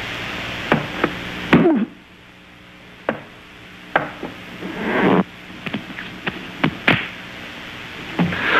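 Cartoon sound effects: a string of sharp knocks and clicks, with a few short sliding squeaks that dip and rise in pitch.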